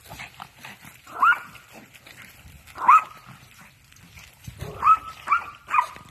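Small puppy yapping: five short, high-pitched yips, each rising slightly in pitch, two spaced well apart and then three in quick succession near the end.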